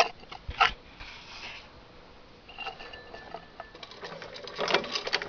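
Sharp clicks and light rattles of the old Singer 29-3 sewing machine's metal parts being handled: two clicks right at the start, a cluster of rattling clicks near the end.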